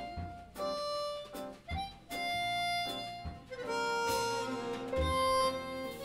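Harmonica playing a slow melody of long held notes, cupped to the microphone. Upright bass plucks a low note about every second and a half underneath.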